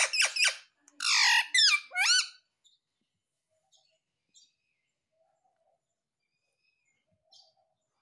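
Indian ringneck parakeet calling: a quick run of loud, high squawks and chirps that slide up and down in pitch, lasting about two and a half seconds. Then it falls almost quiet, with a few faint ticks.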